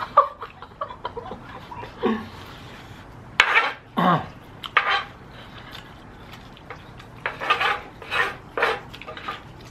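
Wooden spoons and chopsticks scraping and knocking against an electric griddle pan as fried rice is scooped up, in short separate strokes. About three and a half seconds in there is a brief voice-like sound that falls in pitch.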